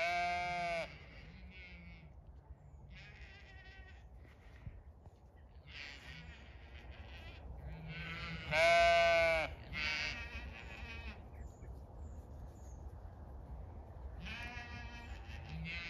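Zwartbles ewes bleating: about six separate calls of under a second each, the loudest about halfway through.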